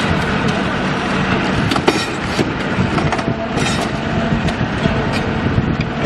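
Heavy machine's engine running steadily, with metal clanking and screeching, loudest about two seconds in and again about three and a half seconds in.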